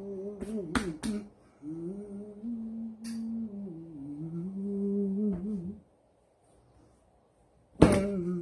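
A man humming a tune in long held notes, with sharp cracks of a bath towel being snapped out: a few quick ones about a second in and the loudest one near the end.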